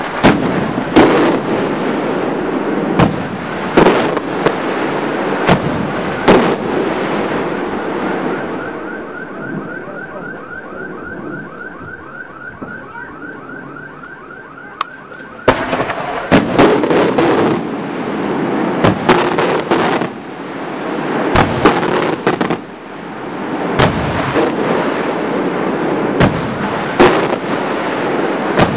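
Daylight fireworks going off: a dense run of loud bangs and reports over crackling. About a third of the way in the bangs ease off for several seconds while a fast repeating chirp sounds about four times a second. Heavy bangs start again about halfway through.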